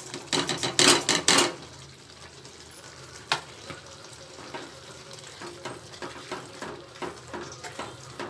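Grated coconut and chopped coriander pushed off a plate into a pan of thick tomato gravy, with a burst of loud scraping and tapping in the first second and a half. Then a metal spoon stirring the gravy in a metal kadai, with scattered light clinks and one sharper knock about three seconds in.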